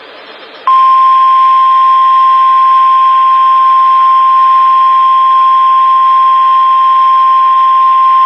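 NOAA Weather Radio 1050 Hz warning alarm tone: one loud, steady, unwavering tone that starts under a second in after faint radio hiss. It is the tone that alerts receivers that a warning broadcast follows.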